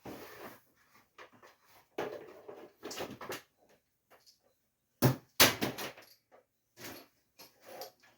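Irregular clicks and knocks of tools and parts being handled on a Husqvarna 350 chainsaw during disassembly, with two sharper knocks about five seconds in.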